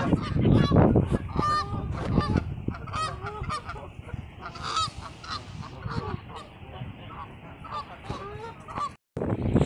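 A flock of Canada geese honking: many short, repeated calls overlapping one another, busiest in the first few seconds and thinning out later, cut off suddenly near the end.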